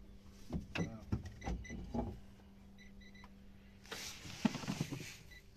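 Handling of a bait pot on a boat deck: a few short knocks and clinks, then a rustle lasting about a second, over a faint steady hum.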